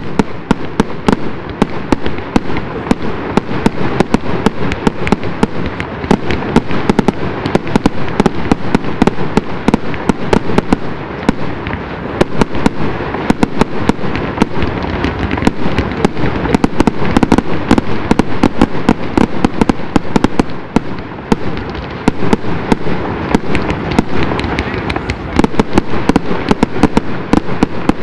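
Fireworks display, shells and comets being fired up and bursting in rapid succession: a dense, unbroken run of sharp bangs, many a second.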